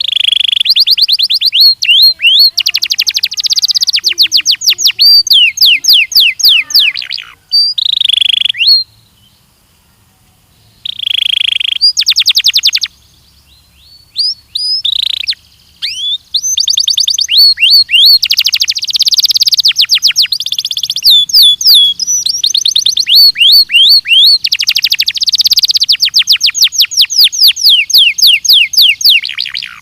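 Belgian canary singing in long, fast trills of repeated high notes, broken by a pause of about two seconds a third of the way in and a few shorter breaks.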